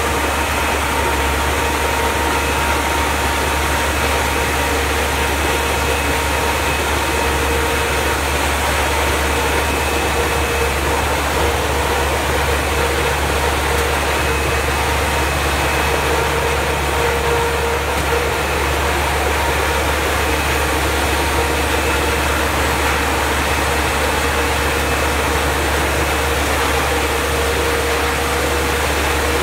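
A compact tractor's engine and its front-mounted bug-vacuum fan running together without a break: a loud, steady drone with a faint constant whine on top.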